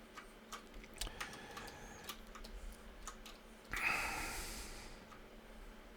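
Scattered, irregular clicks of a computer mouse and keyboard. Just before four seconds in, a short rush of hiss starts suddenly and fades out within about a second.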